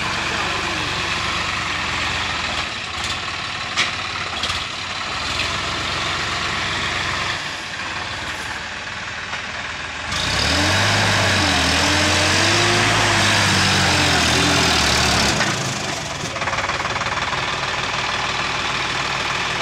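Sonalika DI 50 RX tractor's diesel engine running steadily as it works through a flooded paddy field. About ten seconds in it gets louder for roughly five seconds, with the engine note rising and dipping as it pulls harder, then it settles back to a steady run.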